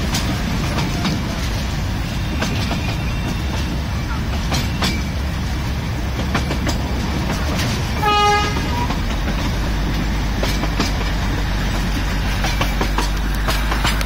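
Darjeeling Himalayan Railway narrow-gauge toy train running, with a steady low rumble and scattered clicks from the wheels and couplings. One short horn toot sounds about eight seconds in.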